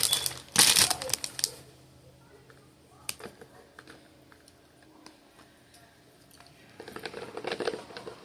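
Packaging crinkling and rustling as it is handled, loud for the first second and a half. Then it goes quiet, with a few small clicks and taps, and there is another softer rustle near the end.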